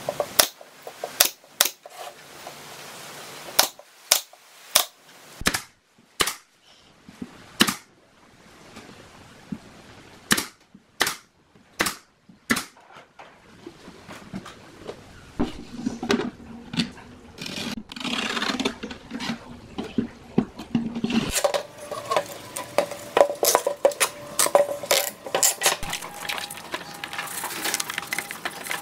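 Pneumatic nail gun firing nails into an MDF speaker cabinet: about fifteen sharp shots at irregular intervals over the first dozen seconds. After that, denser rubbing and scraping noise.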